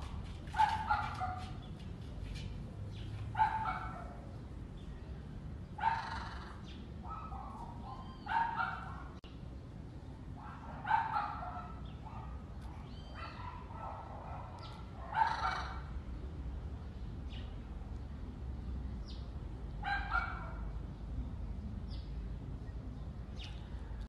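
Short animal calls, about nine in all, each brief and sharp, coming every two to three seconds with a longer gap in the second half, over a low steady rumble.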